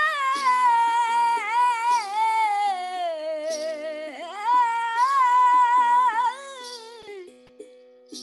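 A woman singing a long, wavering, wordless melismatic line of a Baul song over a steady low drone; the voice falls away about seven seconds in.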